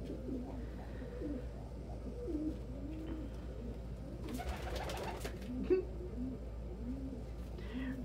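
Several domestic pigeons cooing, low coos rising and falling and overlapping one another, with a brief rustle about halfway through.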